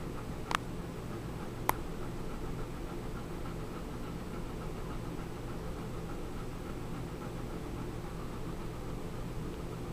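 Steady low hum and hiss of room noise, with two sharp clicks, about half a second and just under two seconds in.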